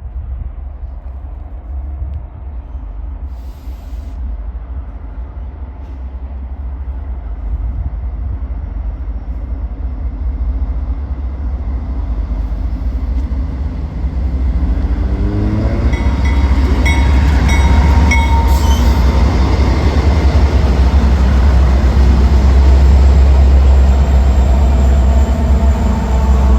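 A train approaching and passing, building steadily and growing loud about halfway through, with a deep rumble and a few thin high tones over it.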